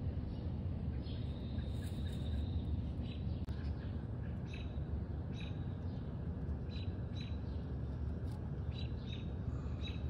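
A fledgling American robin calling with repeated short, high chirps, with one longer drawn-out note a little over a second in: the begging calls of a hungry young bird. A steady low rumble runs underneath.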